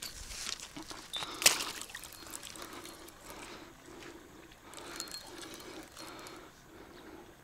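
Water splashing as a hooked common carp thrashes at the surface, with a sharp knock about one and a half seconds in.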